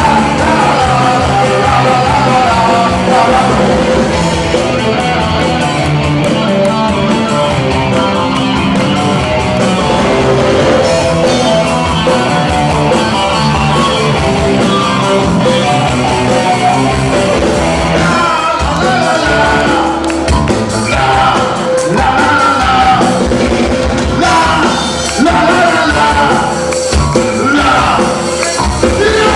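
Rock band playing live and loud, with a singer's voice over the band, heard from among the audience.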